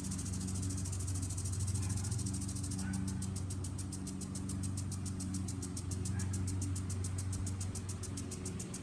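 Lawn sprinkler spraying, a steady high hiss for the first three seconds that turns into fast, even ticking, over the steady low hum of a lawn mower engine running.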